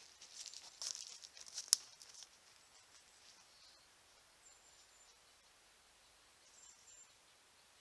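Columbian black-tailed deer walking away through dry fallen leaves: hooves rustling and crunching in the leaf litter for about two seconds, with a sharp snap near the end, then quiet apart from a couple of faint high, thin chirps.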